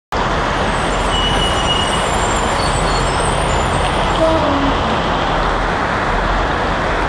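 Heavy rain pouring onto a street, a loud steady hiss, mixed with traffic driving on the wet road; a truck passes close about four seconds in.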